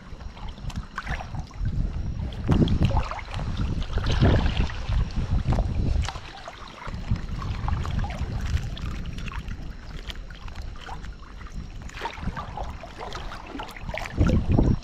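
Water sloshing and splashing around a person wading in waders and working a crab dip net, with surges about 2.5, 4 and 14 seconds in. Wind rumbles on the microphone throughout.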